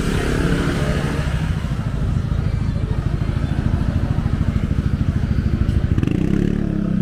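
A motorcycle engine running close by, a loud, rapid low pulsing, with a steadier, higher note coming in about six seconds in.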